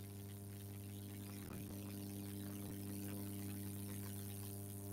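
Steady electrical mains hum with its overtones, under a faint hiss: background noise from the microphone and recording setup.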